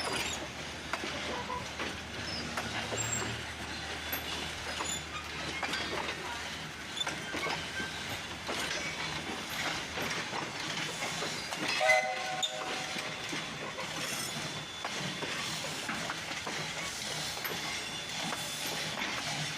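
Passenger train rolling slowly past, its wheels clicking over the rail joints with a steady rumble. A brief high tone sounds about twelve seconds in and is the loudest moment.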